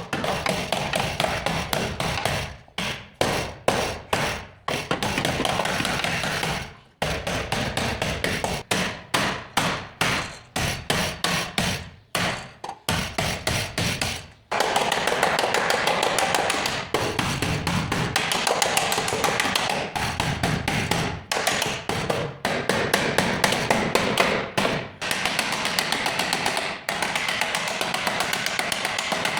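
Hammer blows on car body sheet metal, panel beating to reshape collision damage: quick runs of sharp strikes broken by short pauses, packed closer together from about halfway on.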